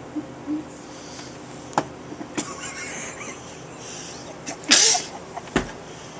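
A man sneezes once, a short sharp burst about three-quarters of the way through, set off by a tightly twisted tissue pushed into his nostril. A few sharp clicks come before and just after it.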